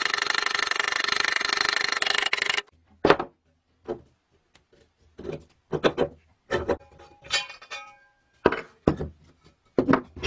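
Hand tools working on a rusty cast-iron scale base: first a couple of seconds of dense, rapid rasping, then separate knocks and clinks of the rusty metal parts, with a brief metallic ring about seven seconds in.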